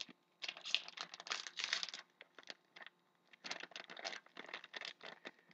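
Plastic trading-card pack wrapper crinkling and tearing as a pack of hockey cards is opened, in two spells of dense crackling.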